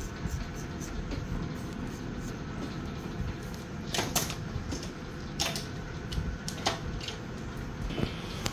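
A few sharp clicks and taps from the barber's tools being handled, in two quick pairs and then singly, over a steady low background rumble.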